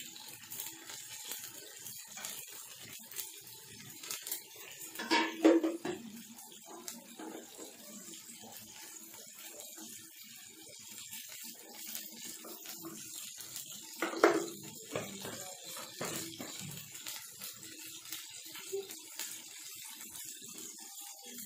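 Pot of moong dal and rice khichuri simmering, with a faint, steady bubbling of the cooking liquid. Brief louder sounds break in about five and fourteen seconds in.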